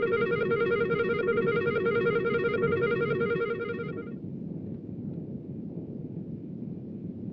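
An eerie, rapidly warbling tone, bell-like with many overtones, holds steady and then stops about four seconds in. A low rumbling drone is left underneath.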